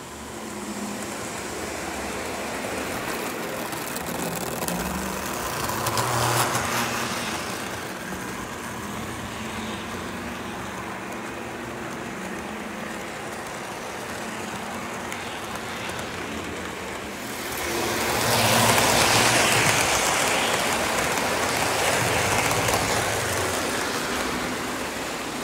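Lionel O-gauge model train running on three-rail track: the steady rumble and whir of the motor and metal wheels rolling over the rails, swelling louder briefly about six seconds in and again for a longer stretch from about eighteen seconds.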